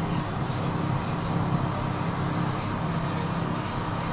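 Electric oven's fan running with the grill on: a steady low hum with a fainter higher tone and an even hiss over it.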